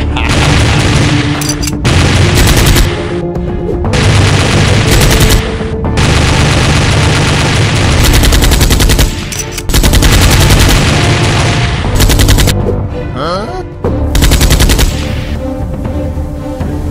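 Repeated bursts of rapid automatic-gunfire sound effects, several in a row with short gaps, over background music.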